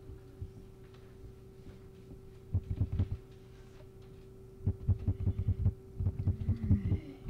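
Computer mouse scroll wheel being turned in quick spurts, heard as runs of rapid low thumps: a short run about two and a half seconds in, then a longer one a second or so later. A steady electrical hum underneath.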